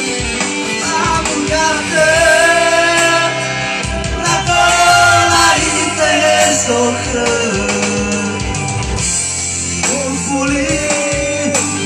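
A song: a solo voice singing held, gliding notes over guitar accompaniment with a steady bass line.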